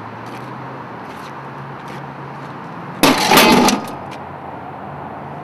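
A single loud crash lasting under a second, about three seconds in, over steady background noise with a low hum.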